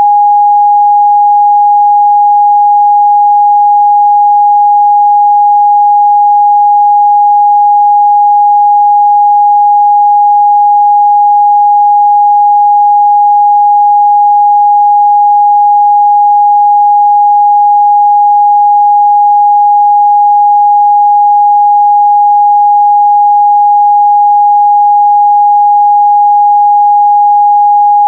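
A pure 824 Hz sine-wave test tone, loud and perfectly steady, with no harmonics or other sound.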